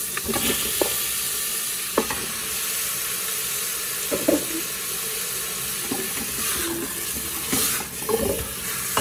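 Pork cuts sizzling as they fry in a little lard in an aluminium pressure cooker, stirred with a wooden-handled spatula that scrapes and knocks against the pot a few times.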